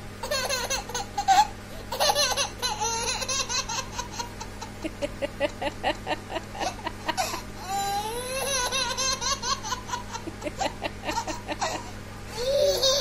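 A baby laughing hard, in runs of quick short laughs with brief pauses between them.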